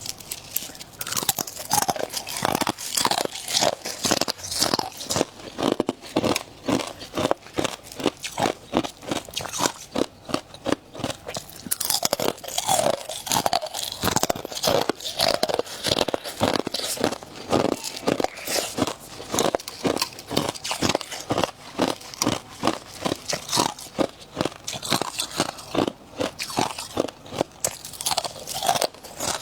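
Frost ice being bitten and chewed close up: steady crisp crunching, about three crunches a second.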